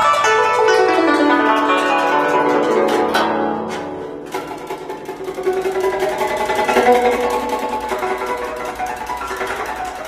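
Guzheng plucked with finger picks: a fast downward sweep of notes across the strings, ringing away, then a fresh passage of plucked notes starting about four seconds in.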